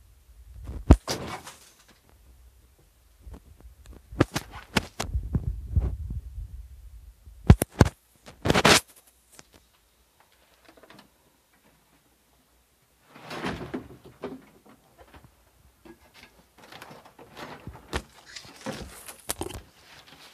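Handling noise from a handheld camera being swung about: irregular knocks, bumps and rubbing with low rumbles, in bursts a few seconds apart with quiet gaps between.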